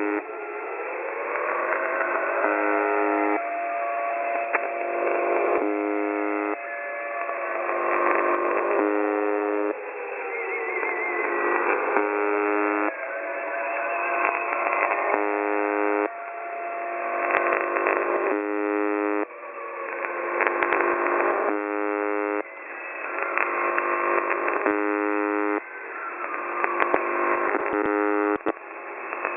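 Shortwave radio reception of the UVB-76 'Buzzer' station, with the thin, band-limited sound of a receiver: a harsh buzz tone repeats about every three seconds. Between the buzzes, a siren-like tone slides up in pitch and holds over hissing static.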